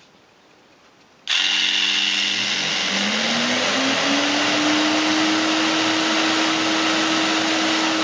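A small electric jigsaw is switched on about a second in and runs steadily. A moment later the Proxxon CW-matic workshop vacuum starts automatically through its tool socket: its motor's hum rises in pitch over about two seconds as it spins up, then runs steadily together with the saw.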